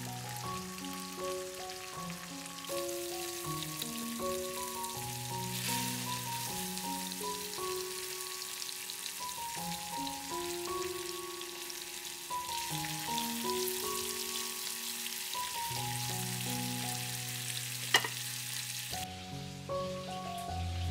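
Floured chicken breasts sizzling as they fry in a pan of butter, the sizzle heavier in stretches and stopping shortly before the end, with a single sharp click near the end. Soft background music with a plucked melody plays throughout.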